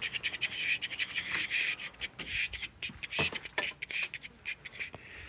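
Packaging being handled while a product is unboxed: irregular rustling and crinkling with scattered clicks and a few louder knocks.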